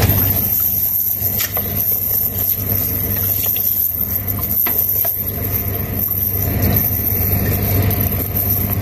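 Small engine running steadily at idle, a low even hum, with a few faint clicks as the net is handled.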